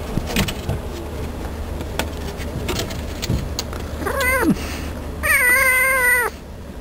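Domestic cat meowing twice while it mouths a person's fingers: a short meow about four seconds in, dropping in pitch at the end, then a longer drawn-out meow a second later. Before the meows there are soft clicks and rustling.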